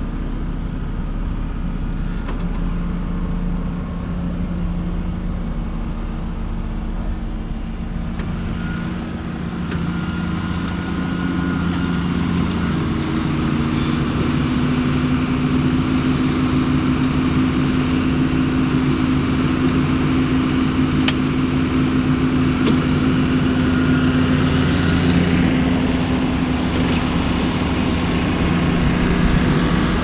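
New Holland T7 tractor's diesel engine running with the plough lifted. About ten seconds in it grows louder and higher in pitch as the tractor pulls round and past.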